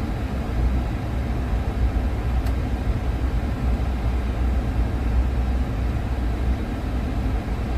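Steady low rumble of ambient machinery noise aboard a Boeing 787 on the ground, even and unbroken, with a faint tick about two and a half seconds in.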